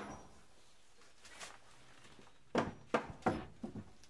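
Claw hammer striking pallet wood: one sharp knock right at the start, a faint one just over a second in, then a quick run of four or five knocks about two and a half seconds in.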